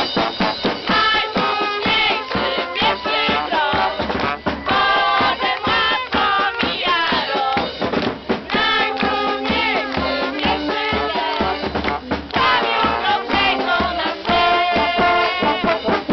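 A band playing live music, with singing over a drum beat.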